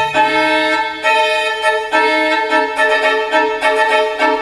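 Recorded string music played back through hi-fi loudspeakers and picked up by a camcorder microphone: a violin lead of held notes, turning to quicker repeated notes after about three seconds. A low bowed-string part drops out just after the start.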